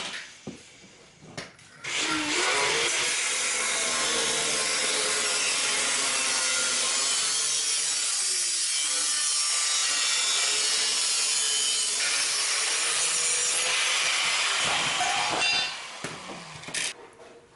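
Angle grinder cutting through a steel exhaust pipe: a harsh, steady grinding screech with the motor's pitch wavering under load. It starts about two seconds in and stops near the end, winding down.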